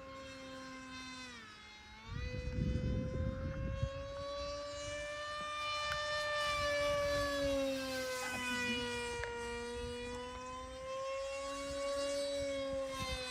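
Motor and propeller of a radio-controlled FPV airplane in flight: a steady whine whose pitch slowly rises and falls as it flies about, with a sharp dip about a second and a half in. A burst of low rumbling noise comes in about two seconds in and lasts a couple of seconds.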